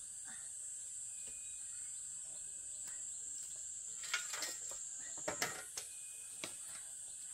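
Steady high-pitched insect chorus droning continuously. A handful of sharp clicks or knocks come in a cluster a little past the middle.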